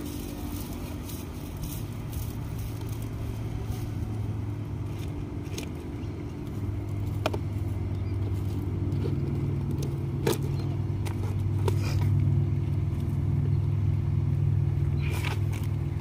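A motor's steady low drone that grows louder about halfway through and stays up, with a few scattered sharp clicks over it.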